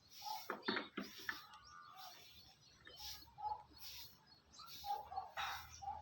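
Short scattered bird chirps and calls, with a few sharp clicks.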